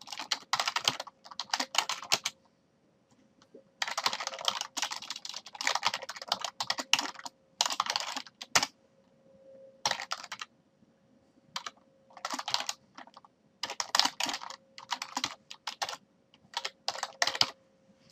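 Typing on a computer keyboard in quick runs of keystrokes, broken by short pauses. A faint steady hum sits underneath.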